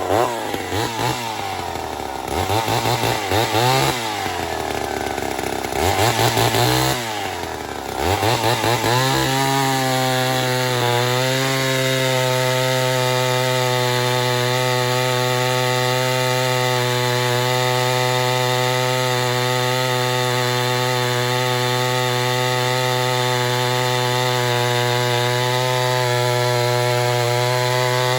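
Ported Poulan 245A two-stroke chainsaw revved up and down a few times, then held at steady full throttle from about nine seconds in as it cuts into hardwood.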